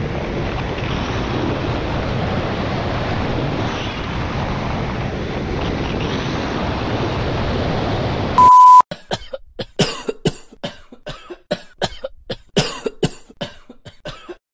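Wind rushing over an action camera's microphone on a fast snowboard run. About eight seconds in it cuts off suddenly with a loud, short electronic beep, followed by a rapid, uneven string of short sharp sounds.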